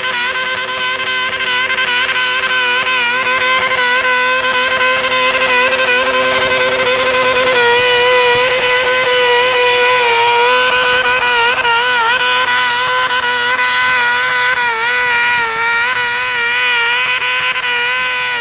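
Small garden-tractor pulling engine running flat out under load as it drags a weight-transfer sled, holding a high, nearly steady pitch that wavers more in the second half.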